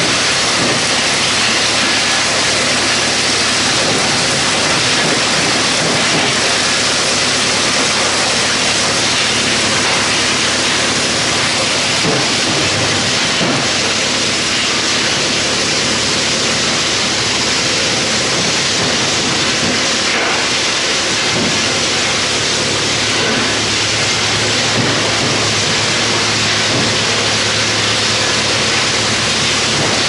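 Wood chipper running under load, a steady, dense rushing noise as wood chips are thrown out of its discharge, with a low steady hum underneath.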